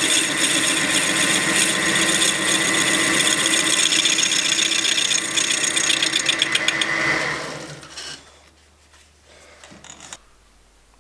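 Metal lathe running with its tool taking a cut in yellow metal: a steady mechanical noise with a high whine, which fades out about seven and a half seconds in. Faint small handling sounds follow.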